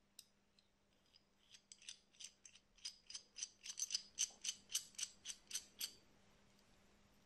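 Worm screw of a 6–68 mm wide-jaw cast adjustable wrench being rolled with a thumb to open the jaw, giving a run of small metallic clicks. The clicks grow louder and quicker, to about three a second, then stop near the end.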